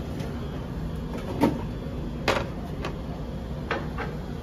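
Canteen clatter: a handful of sharp knocks and clacks of trays and dishes being handled, the loudest a little past two seconds in, over a steady background din.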